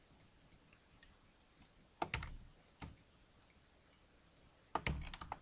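Computer keyboard keys and mouse buttons clicking in a few short clusters, shortcut keystrokes and clicks used while editing a 3D mesh.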